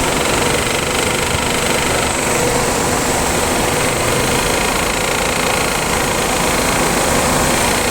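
Nissan Sentra's 2.0-litre four-cylinder engine running steadily at idle.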